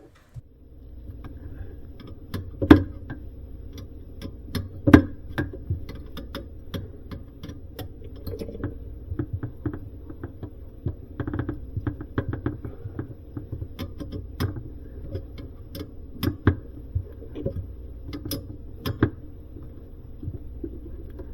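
Scattered metal clicks and knocks of tools and a 1/4-inch compression fitting being threaded and tightened onto a water supply valve. Two louder knocks come in the first five seconds, and denser small clicks follow later, over a steady low hum.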